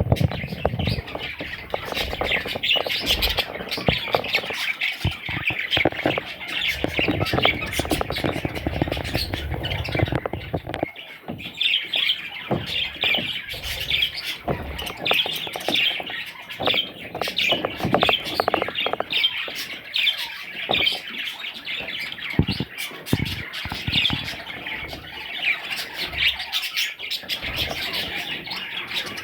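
A group of budgerigars chattering and squawking without pause, many short overlapping calls, with scattered knocks and thumps.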